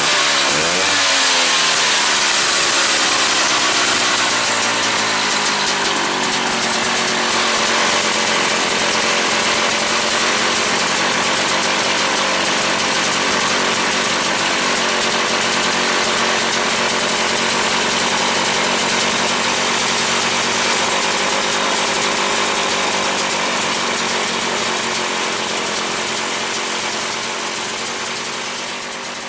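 1972 Ski-Doo Élan's single-cylinder 247 cc Rotax two-stroke engine running. Its pitch swings up and back down just after the start, then holds steady, and it grows quieter near the end.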